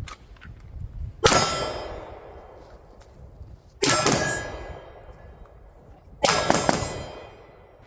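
Three pistol shots about two and a half seconds apart, each with a long metallic ring like struck steel targets.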